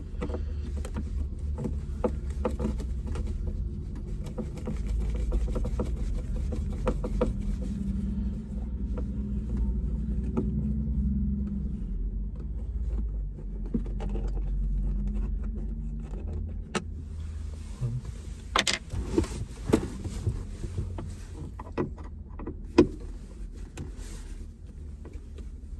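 Phillips screws being undone from car interior trim, with a low handling rumble and scattered clicks and knocks of the screwdriver and plastic trim. The clicks are sharper and more frequent in the second half.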